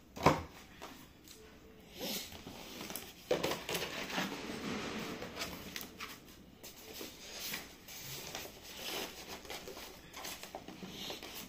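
Scissors cutting into a cardboard box, with a sharp snip right at the start. Then the cardboard flaps are opened and the plastic sheet over the foam packing rustles and crinkles as it is handled.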